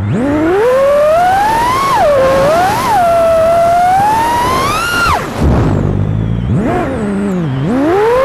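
Whine of a 5-inch FPV freestyle quadcopter's brushless motors (2306, 1750 kV, on 6S) spinning 5.1-inch tri-blade props, its pitch sliding up and down with every throttle change. It drops steeply to a low hum about five seconds in and again shortly before the end, then climbs back each time.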